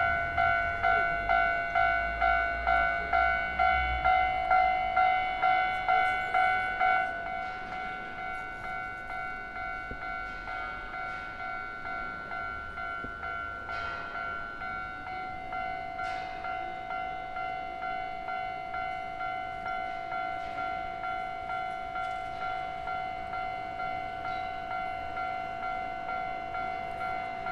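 Japanese railway level-crossing warning bell ringing in a steady, even rhythm of about two dings a second. A low rumble under it, typical of a passing train, stops about seven seconds in, and the bell is quieter from then on.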